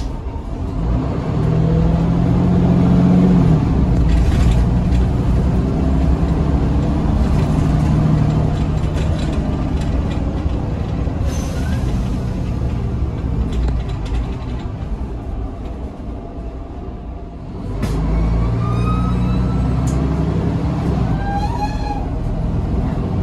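Mercedes-Benz Citaro G C2 articulated bus's engine pulling hard at full throttle (kickdown), heard from inside the cabin, its pitch climbing and stepping back at each gear change. It eases off about 15 s in, then comes back under hard acceleration at about 18 s with a rising whine.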